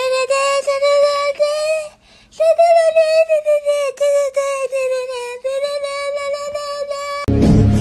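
A single high sung note, held for about two seconds, broken off briefly, then held again for about five seconds with slight wavers before it cuts off suddenly near the end.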